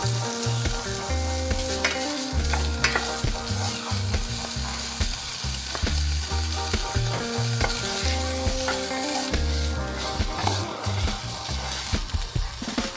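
Food sizzling in a hot pan: a continuous frying hiss.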